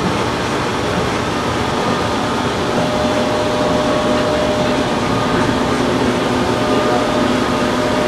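A loud, steady mechanical drone with several held tones.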